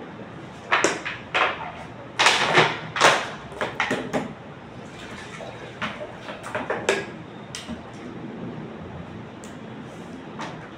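Irregular clatter of sharp knocks and clicks in short clusters, loudest about two to three seconds in, over a steady low hiss.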